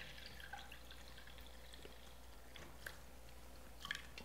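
Herbal decoction poured in a thin stream from a stainless steel pot through a mesh strainer into a glass measuring cup: faint trickling and dripping, with a couple of brief ticks near the end.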